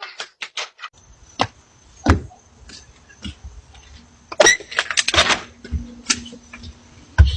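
Scattered knocks and thumps, a loud clattering stretch in the middle and a heavy thud near the end, over the steady faint whine and hum of a doorbell camera's microphone.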